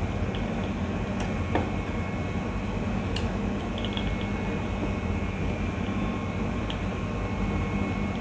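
Steady machine hum, like a fan or air conditioner running. Over it come a few faint clicks and taps from a screwdriver working a wire into the screw terminal of a push-button switch's contact block.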